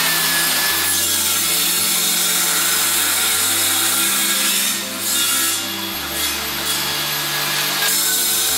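Table saw blade cutting a shallow kerf along a thick wooden board, a steady cutting noise that eases briefly about five seconds in. Background music with a bass line runs underneath.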